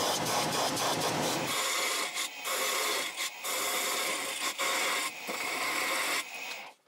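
Stationary belt sander grinding against the edge of a wooden nut for about a second and a half. After a cut, wood is machined on a metal lathe: a steady higher hiss with a few short breaks, stopping just before the end.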